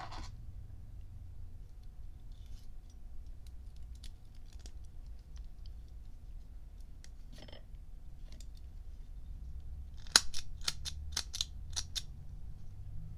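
Small metallic clicks and taps from a brass Evans lighter as its flint spring screw is turned in by hand, with a quick run of about seven sharp clicks near the end.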